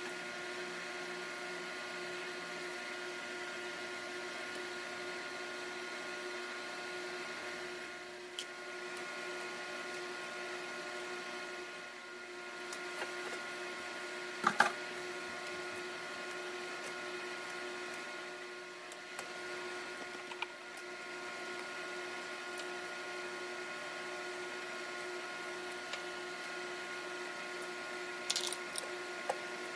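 A steady electric motor hum, with a few sharp clicks of a spatula and chopsticks knocking against a nonstick frying pan as noodles are tossed. The loudest click comes about halfway through, and there is a short cluster near the end.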